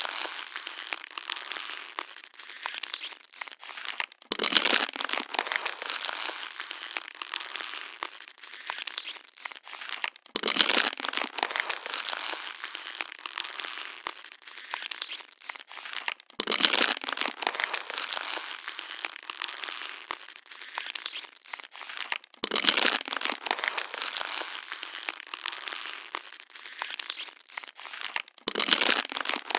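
Plastic water bottle being crushed and crinkled in the hand: continuous crackling, with a louder crunch about every six seconds, five times.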